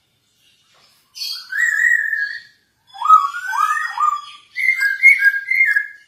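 Masked laughingthrush (poksay Hongkong) singing: three loud whistled phrases beginning about a second in. The middle phrase is three rising slurred whistles, and the last is a quick run of notes alternating between two pitches.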